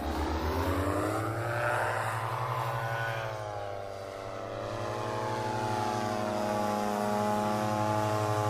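Paramotor engine and propeller running in flight, its pitch rising, dipping about four seconds in, then climbing again and holding steady.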